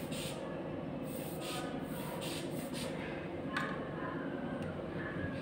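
Rubber inflation bulb of a sphygmomanometer being squeezed over and over, with short puffs of air, pumping up the arm cuff with the release valve screwed shut to raise the pressure above systolic.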